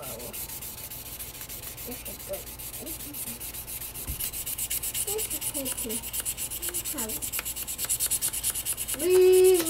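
A bare metal pistol frame being polished by hand with an abrasive pad, a dry scratching rub in quick, even back-and-forth strokes, several a second, growing a little louder. Near the end a voice holds a steady note over it.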